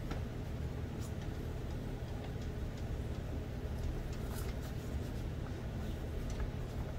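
Microfiber cloth wiped over a tablet's glass screen and rubber case: faint rubbing strokes with a few light ticks, over a steady low room hum.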